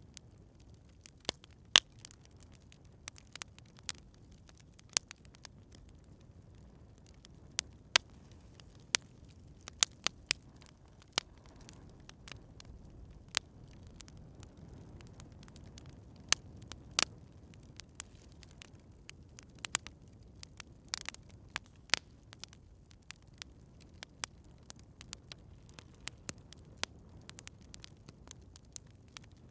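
Campfire crackling: irregular sharp pops and snaps, often a few a second and sometimes in quick clusters, over a faint low rumble of the burning fire.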